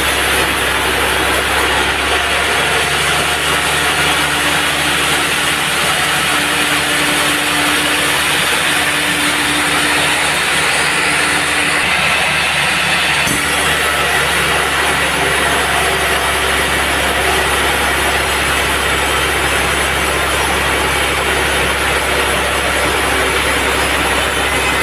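Band sawmill running steadily, with its motor and the blade's noise. The sound changes abruptly about halfway through.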